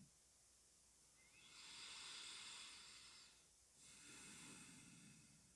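A man breathing, faint: two slow breaths, the first about two seconds long and the second a little shorter, with near silence around them.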